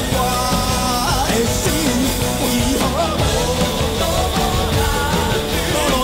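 Live rock band: a man sings a Taiwanese Hokkien ballad line in held, bending notes over electric guitar and a full band.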